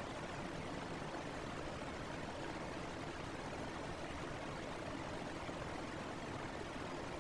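Fan running steadily: an even rush of air noise that does not change.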